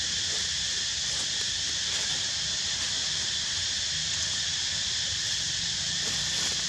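Steady, high-pitched insect chorus, even and unbroken, with a faint low rumble beneath it.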